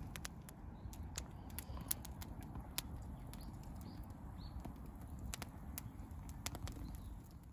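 Burning firewood crackling with sharp, irregular pops over a low steady rumble.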